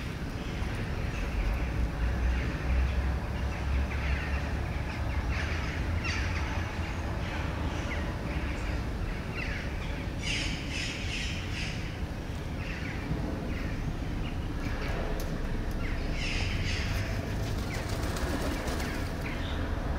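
Birds chirping and calling outdoors in many short calls, busiest about halfway through and again near the end, over a steady low rumble.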